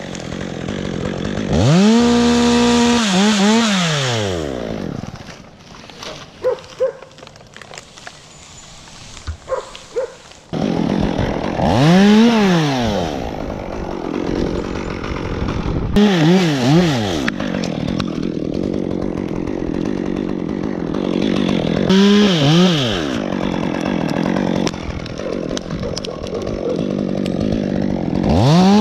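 Chainsaw revving up and dropping back about five times in short bursts as it cuts pine limbs, idling steadily between cuts. From about five to ten seconds in it runs quieter, with a few light knocks.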